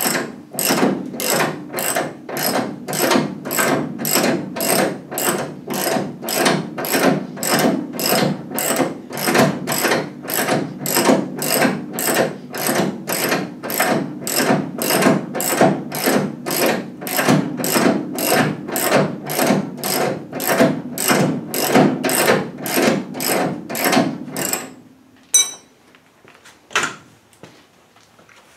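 Half-inch ratchet worked in steady back-and-forth strokes, its pawl clicking in a regular rhythm about twice a second. It is winding a 1965 Mustang's front suspension up against the coil spring. The cranking stops about 25 seconds in, leaving a few faint clicks.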